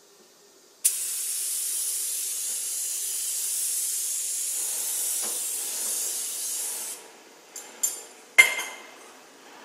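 Compressed-air spray gun spraying activator over water-transfer printing film floating in the dip tank: a steady hiss that starts suddenly about a second in and cuts off near seven seconds. After it come a few light clicks and one louder knock.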